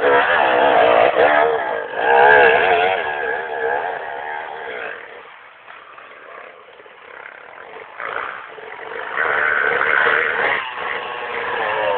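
Enduro dirt bike engine revving hard up close, its pitch rising and falling with the throttle, then fading away about five seconds in. A second bike's engine comes up and revs loudly near the end.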